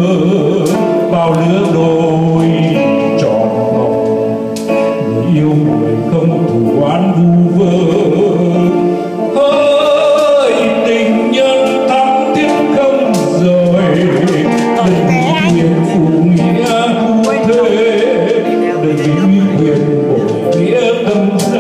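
A man singing a Vietnamese ballad into a microphone, with electronic keyboard accompaniment, amplified through a PA. He holds long notes with vibrato.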